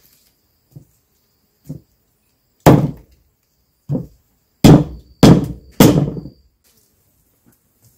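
A few soft knocks, then four loud, sharp knocks in quick succession, each with a short ringing tail.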